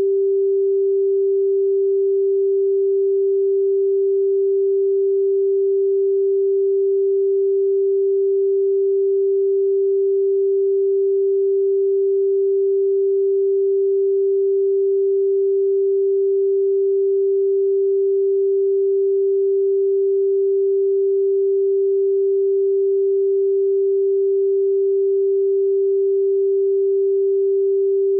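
Simulated tsunami all-clear alarm: a single steady mid-pitched tone, synthesized rather than recorded, held without a break or change in pitch. The long unbroken tone is the signal that the tsunami danger has passed.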